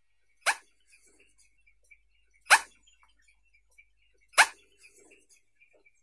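Eurasian spoonbill giving short, abrupt calls: three of them, about two seconds apart.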